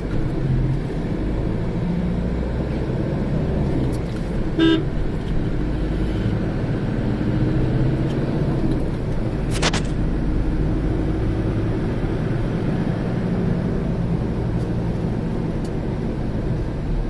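Motor vehicle running with a steady low engine and road rumble. A short horn toot sounds about four and a half seconds in, and a single sharp knock comes near ten seconds.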